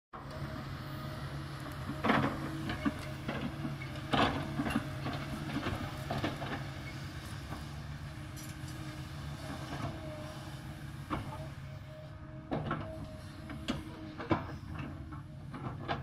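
Kobelco hydraulic excavator's diesel engine running steadily, with sharp knocks and clanks from the working machine, the loudest about two and four seconds in, and a thin whine now and then in the second half.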